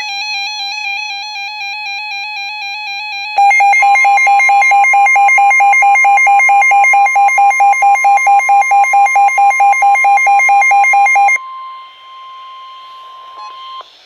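NOAA weather alert radios, one of them a Midland, sounding their electronic warning alarms for a special marine warning: a warbling alarm is joined about three seconds in by a louder, rapidly pulsing beep that stops about eleven seconds in. A steady single tone runs underneath and ends near the end.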